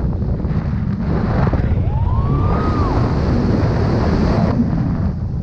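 Wind rushing over an action camera's microphone in flight under a tandem paraglider: a steady low buffeting rumble that grows hissier through the middle. About two seconds in, a brief thin tone rises and falls.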